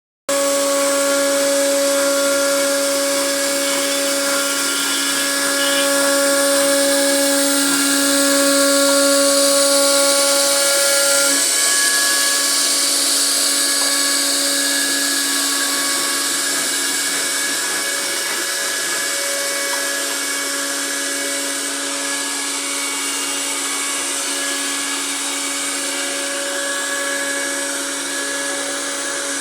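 CNC router spindle running with a steady high whine over a hiss, as it carves a design into a wooden door panel.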